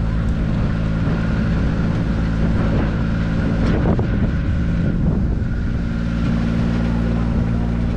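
Engine of a park tour train running steadily, a constant drone that holds the same pitch throughout.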